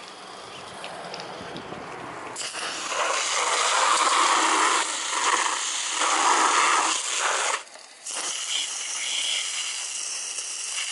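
Hissing water jet from a handheld spray nozzle hitting a string trimmer and the grass around it. It gets louder a couple of seconds in and cuts out for a moment about three quarters of the way through before resuming.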